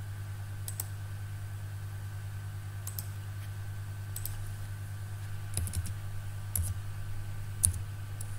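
A few scattered clicks, then keystrokes on a computer keyboard as a number is typed in, over a steady low hum.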